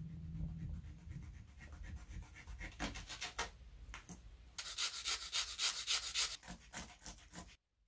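Hands handling hawthorn thorns and twigs on a work board with light scrapes and taps, then, about halfway through, a run of quick, louder rubbing strokes with a pale stone block that tails off shortly before the end.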